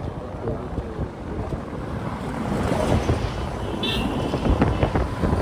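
Wind buffeting the microphone, an uneven low rumble with a brief high chirp about four seconds in.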